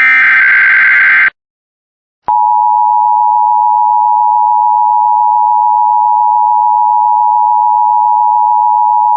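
Emergency Alert System tones. A burst of screeching SAME header data ends a little over a second in, and after a second's gap the EAS two-tone attention signal (853 and 960 Hz together) starts: a loud, steady, harsh tone held through the rest.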